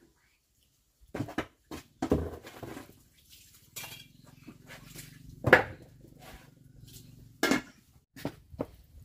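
Cooking pot and basins being handled while washing raw fatty pork: a string of short knocks and clinks, the loudest about halfway through.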